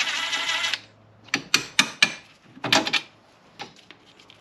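Cordless impact driver hammering on a strut-to-knuckle bolt for under a second, then cutting off. It is followed by several short metallic clinks and clanks as the loosened bolt and the wrench are handled.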